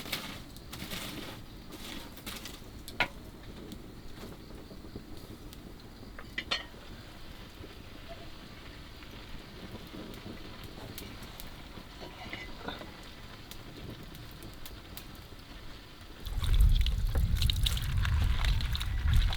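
Scattered light clicks and knocks, then about sixteen seconds in, water starts running and splashing loudly.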